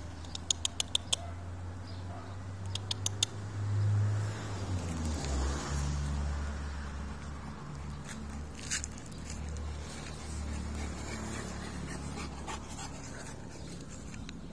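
Large pit bull–type dog breathing and giving soft whimpers over a low steady hum, with a quick run of five sharp ticks in the first second and four more about three seconds in.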